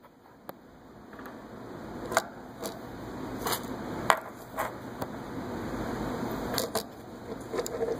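Scattered light clicks and knocks, about nine at irregular intervals, from a small spring-loaded indexing mechanism being handled and worked by hand close to the microphone, over a steady background noise.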